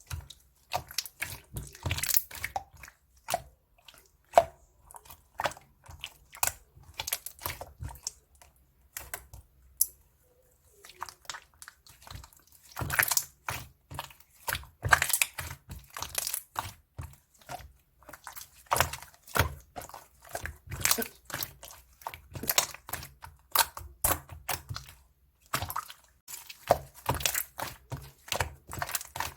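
Slime being squeezed, pressed and poked by hand, giving a rapid, irregular run of short clicks and pops, with a couple of brief lulls.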